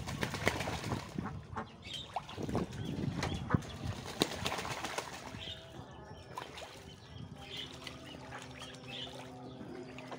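A duck bathing in a shallow muddy puddle, splashing and flapping its wings in the water. The splashing is busiest in the first half and dies down, and a faint steady hum comes in about seven seconds in.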